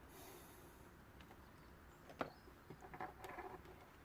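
Near silence, with one faint sharp click about two seconds in and a few light handling clicks and rustles after it.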